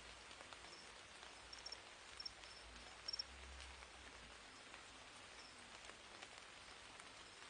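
Faint hiss with a handful of short, high chirps from crickets, each a quick double or triple pulse, scattered through the quiet; the loudest comes about three seconds in.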